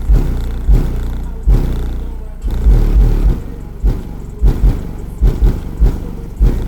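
Bass-heavy music played very loud through a car audio system's Sundown Audio subwoofers: deep, booming bass hits repeating every half second or so, with little above the bass.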